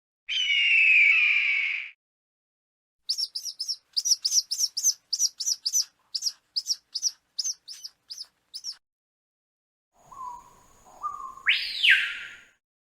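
Peregrine falcon calls. A harsh scream of about two seconds comes first. A rapid series of about twenty short, sharp cacking calls follows, spacing out as it goes. Near the end comes a rising, stepped cry with a thin steady high tone.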